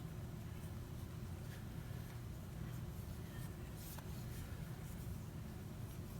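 Faint scratchy rubbing and a few light clicks of fingers smoothing a tempered glass screen protector onto an iPhone X screen, over a steady low hum.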